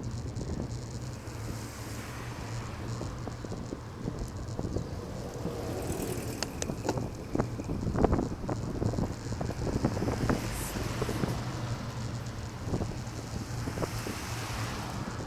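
Wind buffeting the microphone of a moving camera over a steady low rumble, with scattered small clicks and rattles; the sharpest comes about eight seconds in.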